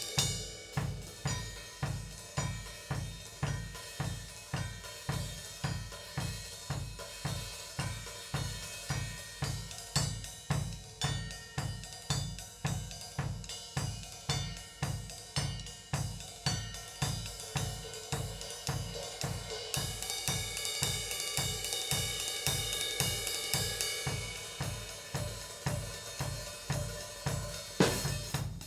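A drum kit fitted with Paiste PST 3 cymbals is played in a steady groove, with the bass drum about twice a second under hi-hat and cymbal wash. The cymbal wash swells fuller about two-thirds of the way in, and a loud hit lands near the end.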